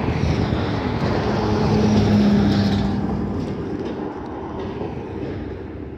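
A vehicle passes by: its noise swells to a peak about two seconds in, with a low steady hum near the loudest part, then fades away.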